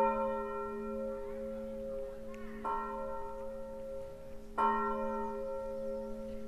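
A swinging church bell tuned to A-sharp, rung alone. It is ringing on from a loud stroke, then the clapper strikes again about two and a half seconds in and more strongly about two seconds later. A low steady hum sounds between the strokes.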